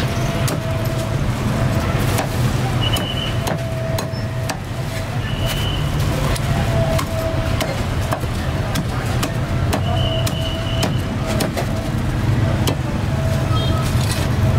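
A meat cleaver chopping roast duck on a thick wooden chopping block, sharp knocks about once a second at an uneven pace. Street traffic rumbles steadily underneath.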